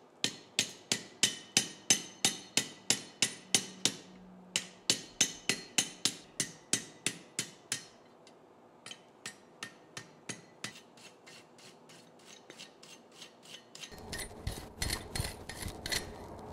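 Hand hammer striking a red-hot steel leaf in a curved hardy tool on an anvil, shaping it into a curve. The blows are steady, about three a second, each with a metallic ring, and come in runs with short pauses between. The later blows are lighter, and a steady low rumble joins underneath near the end.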